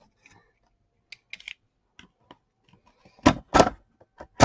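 Cardboard trading-card box being cut and pried open by hand: scattered light clicks and scrapes, then a few loud sharp snaps and knocks in the last second and a half.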